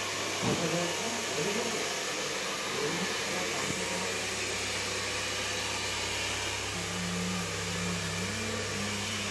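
Hair dryer blowing steadily, an even rushing noise over a low hum.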